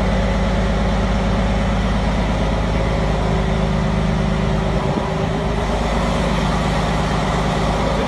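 A motor running with a steady, loud, low drone made of several held low tones. There is a brief change in the sound about five seconds in.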